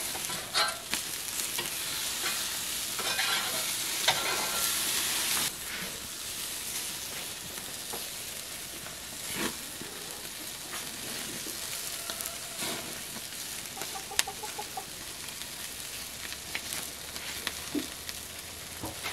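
Hamburger patties sizzling on a charcoal kettle grill, with a metal spatula clicking and scraping on the grate now and then. The sizzle is louder for the first five seconds or so, then settles lower. A chicken clucks briefly about two thirds of the way through.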